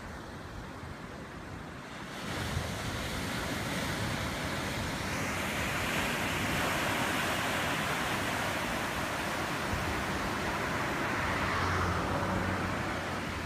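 Ocean surf: a wave breaking and its whitewater washing in, a rushing hiss that builds about two seconds in and eases off near the end.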